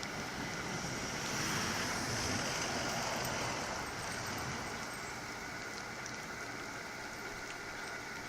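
Storm wind rushing, swelling about a second in and easing off after a few seconds, with wind buffeting the microphone.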